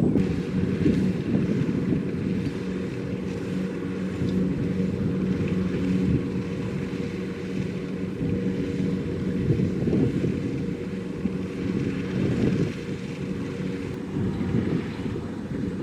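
Kubota DC-70 Plus combine harvester running steadily as it harvests rice, its engine holding a constant pitch over the noise of the machinery, with some wind on the microphone.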